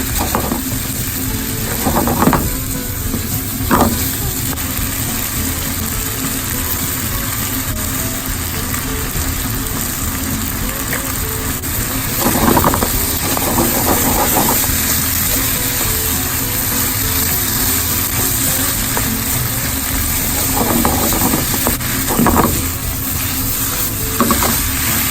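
Food sizzling steadily in a hot frying pan, with a handful of short scraping strokes from a utensil stirring or turning it.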